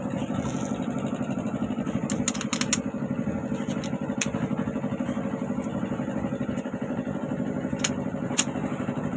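A small engine idling steadily in the background, with a few sharp clicks: a cluster about two seconds in and single ones later.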